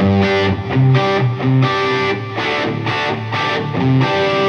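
Electric guitar played through the overdrive channel of a Bludotone Mini amp (tube preamp, Class-D power amp) with the drive channel's bright switch on: a series of struck chords and single notes, each left to ring.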